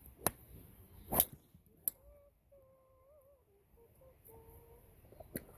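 A sharp crack about a second in, a driver striking a golf ball, with a few fainter clicks before and after it, over a steady outdoor hiss.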